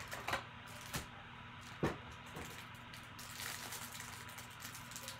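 Cellophane wrapper on a stack of trading cards crinkling and rustling as it is handled and opened, with three sharp clicks in the first two seconds.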